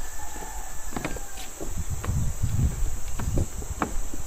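Footsteps on the wooden plank deck of a suspension footbridge, a run of knocks and low thumps from steps in flip-flops, over a steady high drone of insects.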